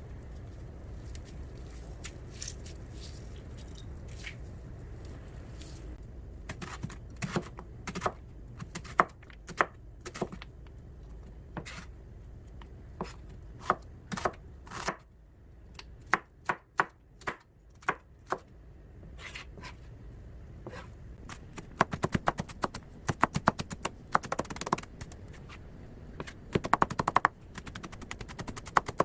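Kitchen knife chopping on a cutting board: a few scattered single cuts at first, then quick runs of rapid chopping near the end, over a low steady hum.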